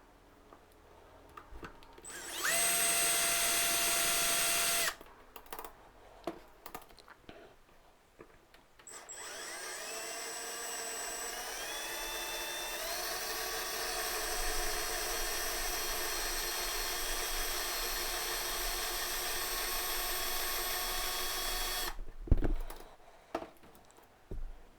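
Power drill drilling out the rivets on a die-cast toy car's base: a short run of about two and a half seconds, then a longer run of about thirteen seconds whose whine climbs in pitch a few seconds in before cutting off suddenly. A sharp knock follows just after, then a few light clicks near the end.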